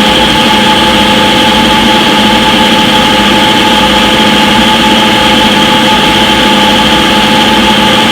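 Front-loading washing machine in its spin cycle, the drum spinning at a steady high speed. It makes an even mechanical hum with several steady tones held throughout.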